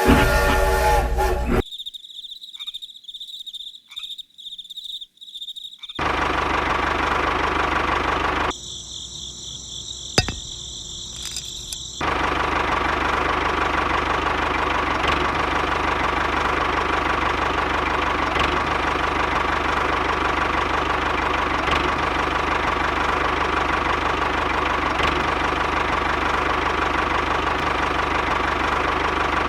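A few short cut-together sounds, including a high pulsing chirp, then a small motor running steadily with a faint high whine and light ticking for most of the stretch.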